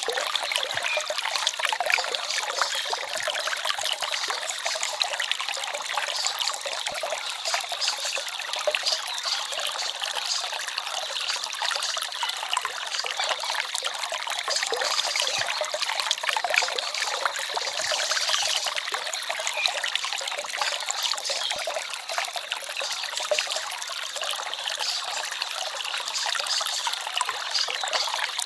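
Small forest stream trickling and babbling steadily, a continuous water rush with almost no deep rumble.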